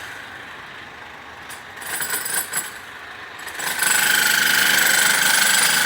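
Demolition hammer or jackhammer-type breaker hammering. It stops at the start, gives a few short bursts in the middle, then runs steadily again from about two-thirds of the way in.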